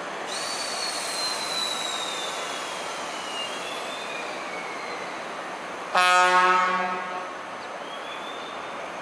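Ex-JNR DD51 diesel locomotive moving slowly with a Krupp M1500BB in tow, its wheels giving a high squeal that slides down in pitch over the first five seconds. About six seconds in comes one blast of about a second from the DD51's American-style horn, the loudest sound.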